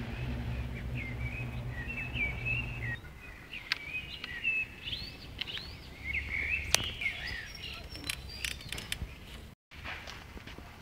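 Small birds chirping and twittering, a string of short chirps that rise and fall in pitch. A low steady hum stops about three seconds in, and scattered sharp clicks run through the rest.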